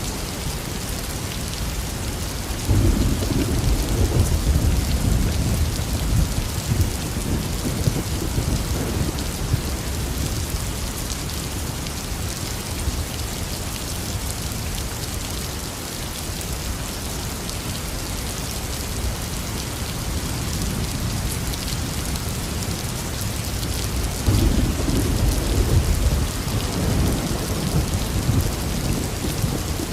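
Heavy rain falling steadily, with thunder rolling twice: a long low rumble starting about three seconds in and fading over several seconds, and another near the end.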